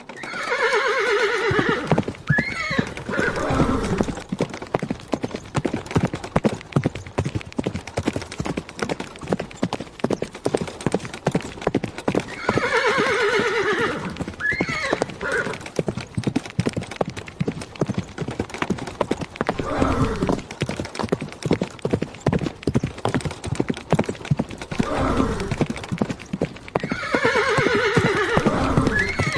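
Horse galloping, hooves striking in a fast, steady beat, with a long falling whinny near the start, again about halfway through and near the end.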